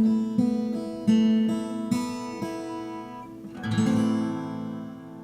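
Acoustic guitar played alone: single picked notes about twice a second, then a final chord struck about three and a half seconds in and left to ring out and fade, ending the song.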